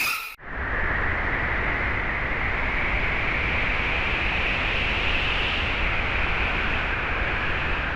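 Sound-effect track of steady howling wind: an even rushing noise with a low rumble and a faint whistling band that rises a little and falls back. It begins abruptly about half a second in, right after a ringing tone cuts off.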